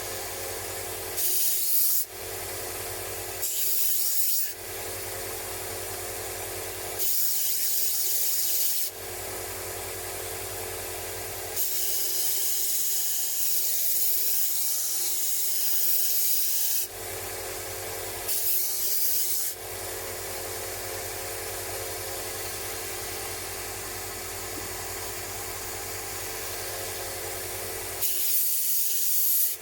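A power sanding or polishing machine runs steadily while a metal wrench is pressed against it in repeated spells. Each contact brings a louder abrasive hiss lasting from one to five seconds.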